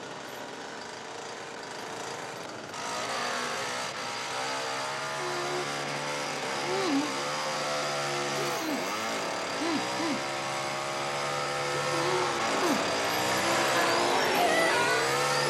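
Petrol chainsaw running loud, revving, its pitch repeatedly dipping and rising again as it bogs and picks up. It cuts in suddenly about three seconds in.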